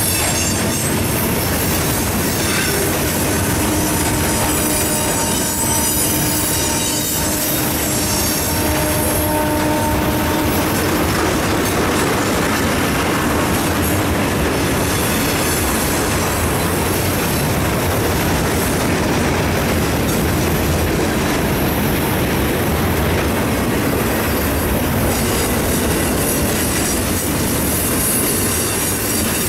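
Freight train's loaded flatcars and centerbeam lumber cars rolling past at close range, a steady loud rumble and clatter of steel wheels on rail. A held metallic squeal rides over it for the first ten seconds or so.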